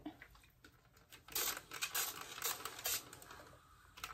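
Steam iron pressing fabric on an ironing board: a run of four or five short hisses in quick succession, then a single click near the end.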